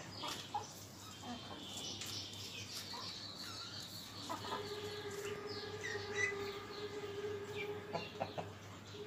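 Chickens clucking, mixed with many short, high chirping bird calls. A steady hum comes in about four and a half seconds in.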